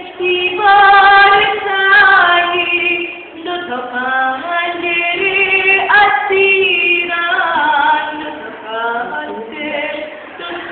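Singing voice, unaccompanied, with long held notes that slide in pitch.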